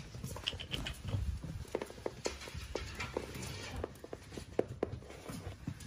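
Boston terrier puppy's paws pattering and clicking on a rubber mat as it walks about, with a few brief high whimpers about half a second in.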